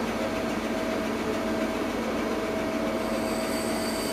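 XYZ SM2000 CNC turret mill running: a steady mechanical whirr with a constant mid-pitched whine, and a thin high whine joining about three seconds in.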